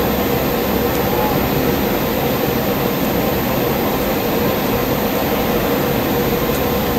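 Steady ballpark ambience: an even, unbroken roar of a large stadium with a faint steady hum, and no distinct event standing out.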